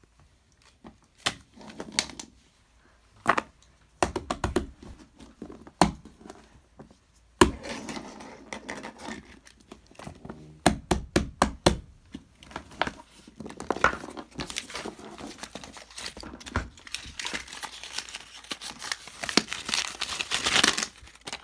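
Fidget toys being handled: irregular clicks and knocks with rustling between them, and a quick run of clicks a little past halfway.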